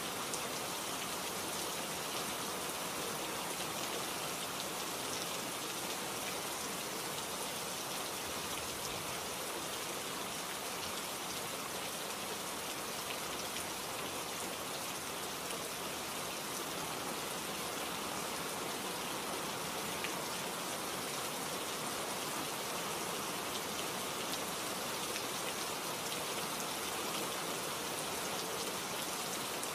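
Steady rain: an even hiss of many small drops, unchanging in level.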